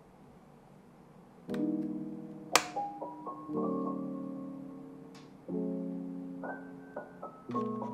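Soft piano background music, with chords coming in about a second and a half in and changing every two seconds or so. A sharp click sounds about a second after the music starts.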